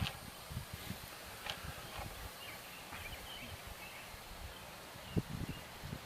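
A few light clicks and taps of hand-handling a wire lead and crimp connector, with one sharper knock about five seconds in, over a faint steady background.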